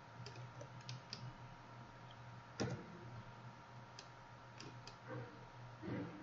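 Scattered clicks of a computer mouse and keyboard, a few separate clicks with one louder knock about two and a half seconds in and a soft thump near the end, over a faint steady electrical hum.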